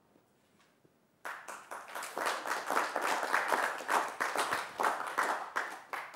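Audience applauding: the clapping starts suddenly about a second in and dies away near the end.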